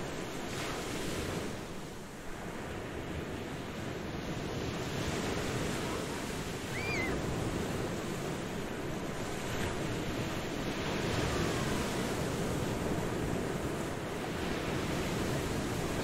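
Ocean surf washing onto a beach, a continuous rush of waves that swells and eases. A brief high whistling call sounds once about seven seconds in.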